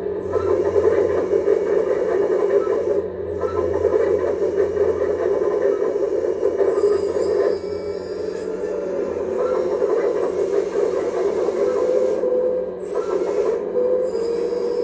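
Kabolite 336 hydraulic RC excavator running, its pump giving a steady whine and hum while the boom, arm and upper body move. Short rising whines come near the end as the hydraulics take up load.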